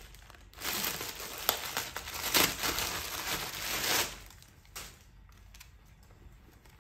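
Rustling and crinkling of handled packaging or clothing, dense from about half a second in until about four seconds in, then dying down to faint handling noise.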